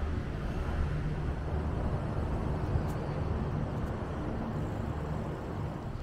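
Steady low engine hum and road noise of a moving motor vehicle.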